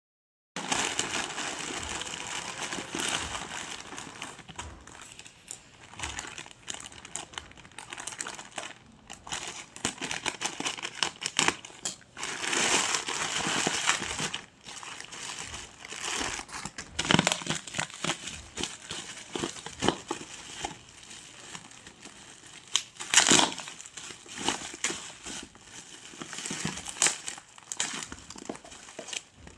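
Parcel packaging being handled and opened: irregular crinkling and rustling with crackles, louder in a few stretches, about a third of the way in and again about three quarters of the way in.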